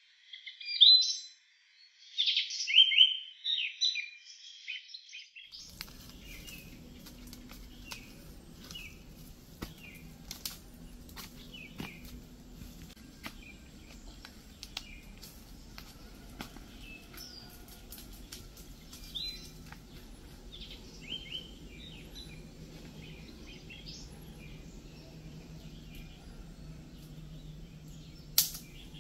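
Birds chirping in quick bright phrases, loud and clear for the first five seconds or so. After that the bird calls are quieter, over a low outdoor hum, with scattered sharp clicks and twig snaps as someone pushes through brush and one louder snap near the end.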